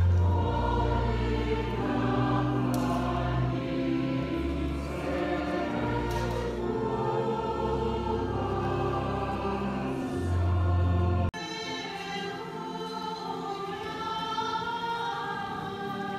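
Choir singing a hymn at Mass in a church, over deep sustained bass notes. About eleven seconds in the sound cuts off abruptly and the singing carries on without the bass.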